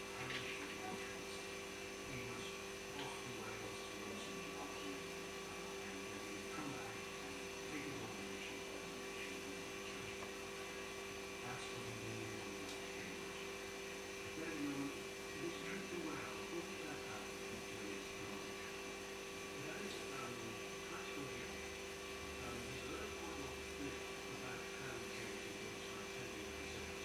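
Steady electrical hum made of several held tones, with faint scattered background noises and no clear bird calls.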